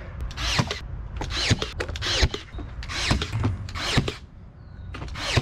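Cordless power tool worked against PVC window trim in a series of short bursts, about eight of them, with a quieter gap near the end.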